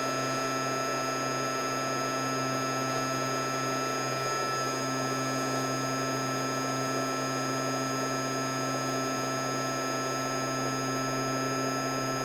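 Workbench air-handling fan running steadily: a constant hum and rush with several fixed whining tones.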